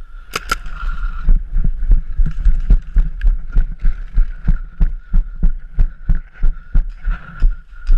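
Footfalls of a person running, heavy thuds about three a second picked up through a body-mounted action camera. They are preceded by two sharp cracks just after the start.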